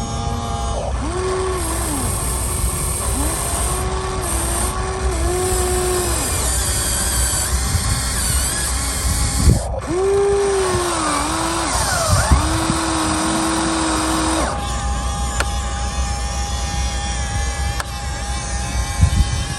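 Electric drive motors and gearboxes of a Huina 1593 radio-controlled excavator whining as it works, the pitch bending down and up as each motor starts, loads and stops, with a sharp knock about halfway. For the last few seconds one steady whine runs on.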